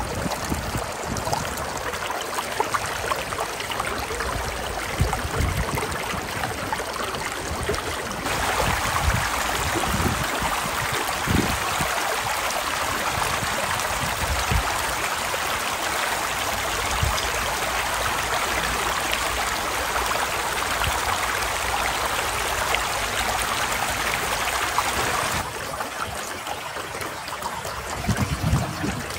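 Shallow stream running over rocks, a steady rush of water, with splashes as leafy greens are swished and rinsed in it. The rush grows louder about a third of the way in and drops back near the end.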